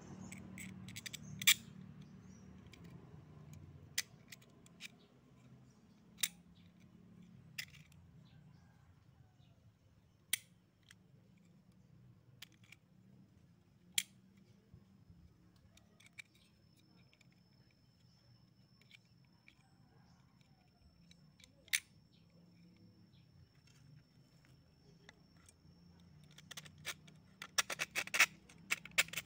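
Scattered sharp clicks and taps of small metal parts being handled: an aluminium trigger housing, a threaded rod and screws, with a quick run of clicks near the end.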